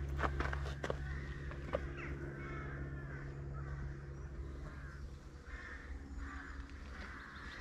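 Crows cawing repeatedly, with footsteps on a path in the first couple of seconds.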